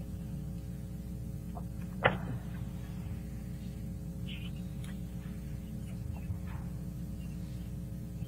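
Steady low hum with background noise over a remote video-call audio line, broken by one sharp click about two seconds in and a few faint ticks later.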